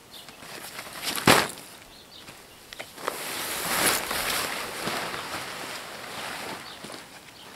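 Nylon tent fabric rustling and flapping as a tent is unpacked and handled, after a single sharp slap about a second in.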